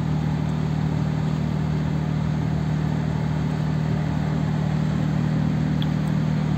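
Steady drone of marine diesel engines: a constant low hum that holds an even level, over a wash of broad noise.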